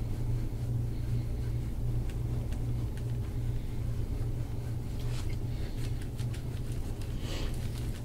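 A steady low hum runs throughout. From about five seconds in come faint, short scratchy strokes of a gua sha tool scraped over oiled skin.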